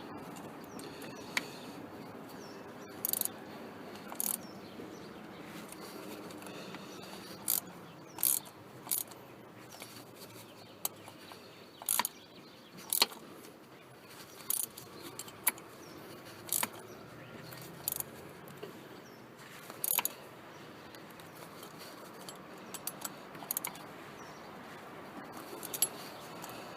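Hand tools and metal parts clicking and clinking on and off while someone works on a car's cooling system. The clicks come in short, irregular bursts a second or more apart.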